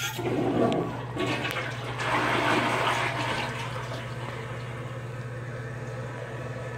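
Toilet flushing: a rush of water that surges twice in the first few seconds, then settles into the steadier hiss of the tank refilling.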